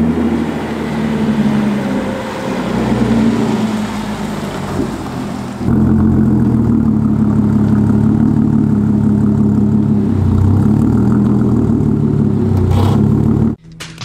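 A tuned, supercharged Audi S4's 3.0-litre V6 running with a steady low tone on a cold day. About six seconds in it gets suddenly louder and stays loud as the car moves off, then the sound cuts off abruptly just before the end.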